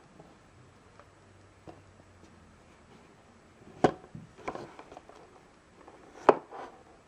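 A small cardboard box handled in the hands, giving a few sharp knocks and taps on the cardboard; the two loudest come about four and about six seconds in.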